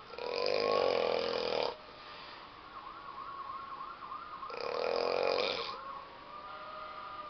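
A person snoring loudly: two long snores about four seconds apart, each lasting over a second. Between them a faint warbling siren rises and falls rapidly in the background.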